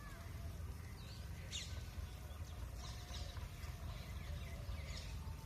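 Birds chirping briefly a few times over a steady low rumble of background noise.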